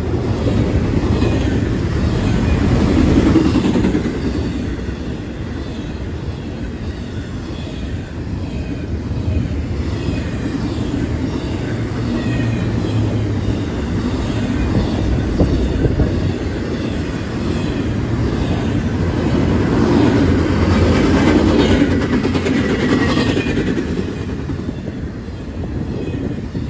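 Double-stack container cars of a BNSF freight train rolling past at speed: a steady rumble of steel wheels on rail with faint high-pitched wheel squeals. It swells louder twice, a few seconds in and again near the end.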